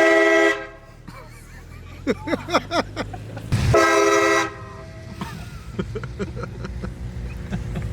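Aftermarket air-powered train horn mounted under a car's bumper, fed by an onboard compressor, blasting twice: two short blasts under a second each, a chord of several steady tones, the first right at the start and the second about three and a half seconds in.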